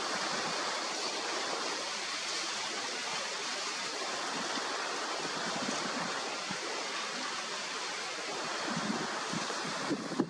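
Steady rushing wind noise on the microphone, which breaks off abruptly at the very end.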